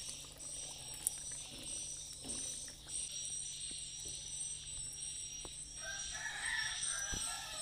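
A rooster crows once near the end, over a steady high-pitched insect drone. A few light knocks sound earlier on.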